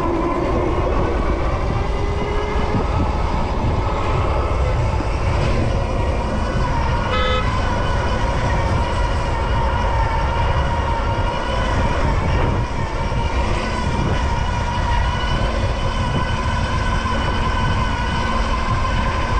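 Super73 ZX electric bike on the move in traffic: wind rushing over the microphone with road and traffic noise, and a steady high whine from the rear hub motor that rises slightly in pitch at first. A brief beep sounds about seven seconds in.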